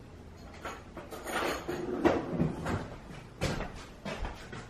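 Several light knocks and clatters, spaced about a second apart, of kitchen things being handled at the counter.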